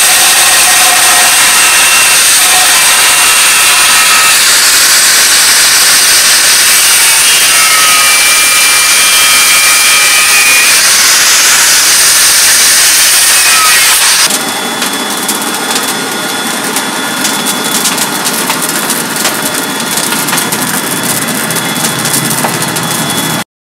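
Angle grinder with a cut-off disc cutting through a steel motorcycle brake disc: a loud, steady, high grinding whine. About 14 seconds in it cuts off and a forge fire takes over, crackling steadily under an air blower with a faint steady hum.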